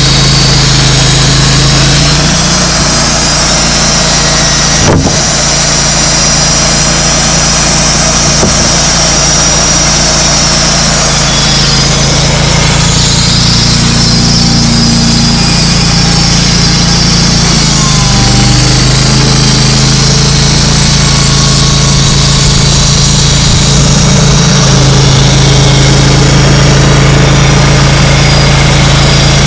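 Wood-Mizer LT35 portable sawmill's engine running loud and steady, its note shifting about two seconds in and again around eighteen seconds as the load on the band saw changes during milling of hemlock.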